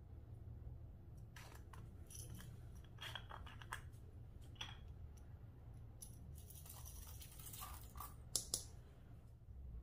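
Clear slime being worked by hand, giving a scattered run of small clicks and crackles that grows denser in the second half, with two sharp snaps near the end.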